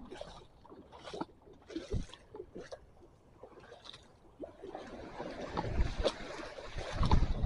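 Seawater washing and splashing along the shore, broken at first, then louder and steadier in the second half with deep rumbles.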